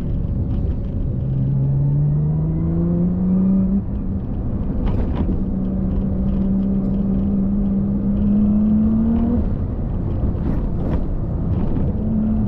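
Car driving on the road, heard from on board: the engine note rises as it accelerates, breaks off about four seconds in at a gear change, then holds nearly steady under a constant rumble of road and wind noise. The front drive shaft has just been replaced with a spare to cure a rattle.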